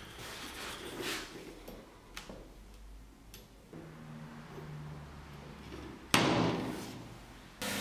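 Light knocks of a steel cleaver blade being handled on a wooden workbench, spaced a second or so apart. About six seconds in, a sudden louder noise starts and fades away over a second and a half.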